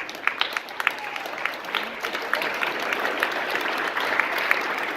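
Banquet audience applauding: many hands clapping together at a steady level, greeting guests who have just been introduced.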